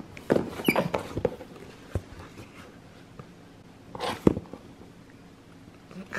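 Felt-tip markers handled on paper and a tabletop: a short flurry of scrapes and taps early on, a single click about two seconds in, and a sharper knock about four seconds in.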